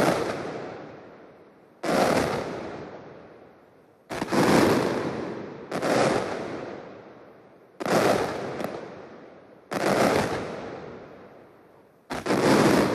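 Mascletà firecrackers (masclets) going off in rapid, dense volleys. The volleys come in waves that start abruptly about every two seconds and fade out before the next one.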